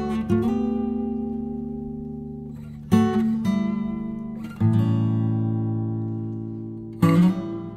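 Background music: an acoustic guitar playing strummed chords. Each chord is left to ring out and fade, with a new strum every two to three seconds.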